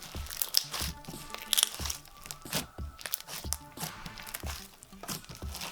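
Thick foam slime full of foam beads being squeezed and pressed, crackling and popping irregularly.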